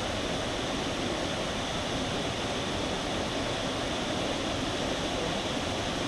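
A waterfall rushing steadily: an even, unbroken noise of falling water.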